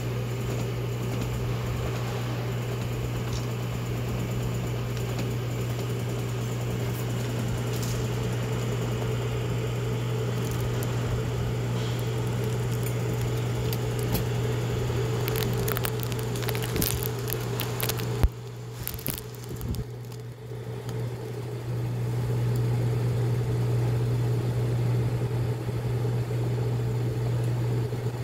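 HAUSCOOK FCH-D220 instant ramen cooker running with a steady low electrical hum while hot water trickles from its spout into the pot of noodles. About 18 seconds in there is a sharp click, the sound drops for a few seconds, then the hum returns.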